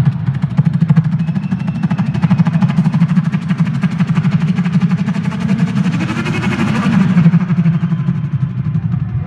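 Motocross bike engine running loud and hard, with a rev that rises and falls about six seconds in.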